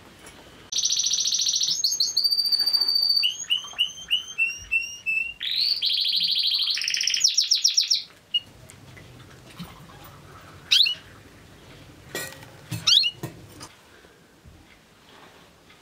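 A songbird singing loudly: fast high trills, a run of short falling chirps, then more trills, for about seven seconds. Afterwards a few soft clinks and short chirps as tea is poured into glasses.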